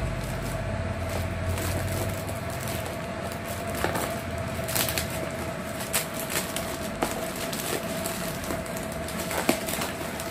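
Plastic courier pouch being cut open with scissors and pulled apart by hand: irregular crinkling and sharp crackles, more frequent from about four seconds in, over a steady faint hum.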